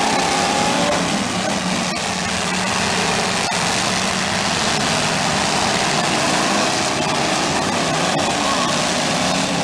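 Several derby cars' engines running at once, a steady, loud mix of engine noise with some wavering pitch, broken by a few brief knocks.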